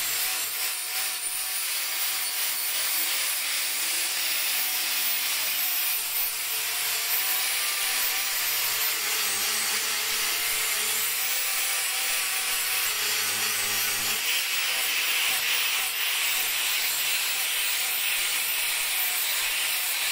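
Festool AGC 18 cordless angle grinder with its brushless motor, an abrasive disc grinding the end of a square steel tube: a steady, loud hiss of disc on metal over the high whine of the motor. About two-thirds of the way through, the grinding sound turns thinner and brighter.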